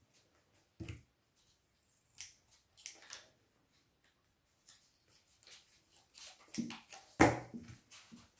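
Small scissors snipping paper a few times, then a knock on the table near the end, the loudest sound, as the scissors are put down.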